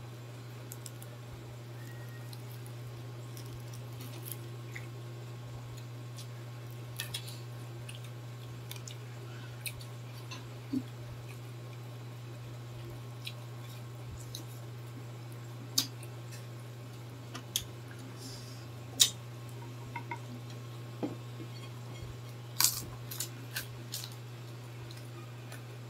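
Mukbang eating sounds: scattered wet smacks and crisp clicks of people biting and chewing crispy fried pork intestine and lettuce. The sounds grow louder and closer together in the second half. A steady low hum runs underneath throughout.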